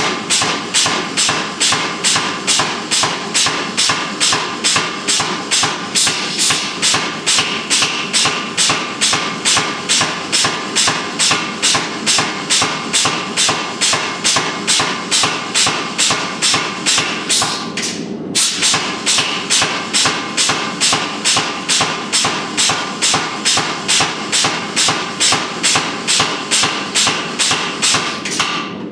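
Steady, even blacksmith's hammer blows on an anvil, about two a second, each with a ringing tone, briefly interrupted by cuts about two-thirds of the way through and at the end.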